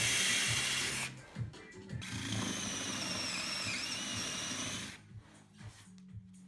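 Belt grinder run in two short bursts: a loud rushing of the spinning belt with a high whine, which stops about a second in, starts again about two seconds in, dips briefly in pitch, and cuts off about five seconds in. Quiet background music follows.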